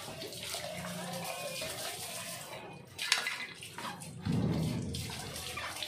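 Water from a garden hose pouring and splashing into a plastic pressure sprayer's tank, running steadily, with a sharp knock about three seconds in and a louder, heavier rush of water from about four seconds.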